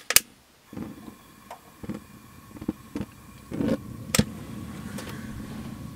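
Clicks from a long-neck lighter and the stove knob, the sharpest just after the start, while the propane burner of a Suburban RV cooktop is slow to light. About four seconds in it catches and burns steadily; it was slow to start because the element was still full of water from cleaning.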